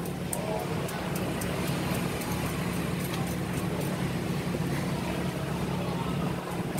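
Fishing boat engine idling with a steady low hum.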